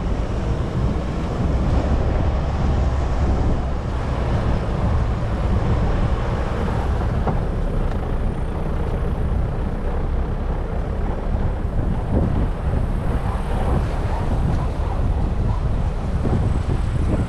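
Wind buffeting the microphone outdoors: a steady, loud, gusty rumble with no distinct events.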